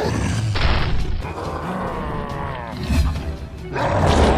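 Action-scene soundtrack: music mixed with heavy booms and crashes. A low, gliding growl runs through the middle.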